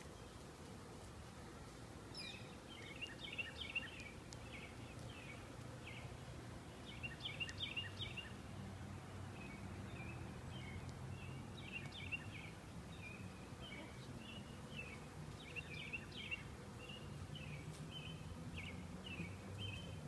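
A honeybee swarm humming in a low, steady drone, a little louder near the end, while a songbird chirps in short runs again and again.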